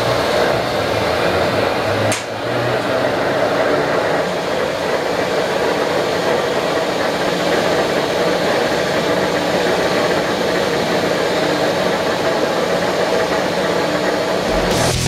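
Mainland VTL-1600 CNC vertical turning lathe with its rotary table spinning empty, no tool cutting: a steady mechanical whir, with a brief dip about two seconds in.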